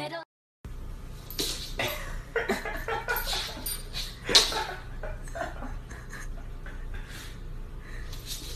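A small fluffy white puppy making short, irregular breathy noises as it sniffs at a piece of food held out to it, with one sharper, louder sound about four seconds in.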